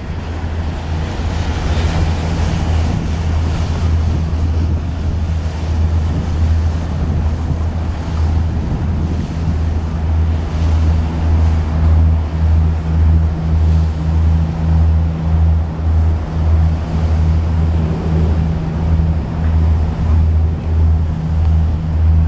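Low, steady drone of a passing river tour boat's engine over the wash of choppy water and wind on the microphone; from about ten seconds in, the drone throbs in an even beat, roughly once a second.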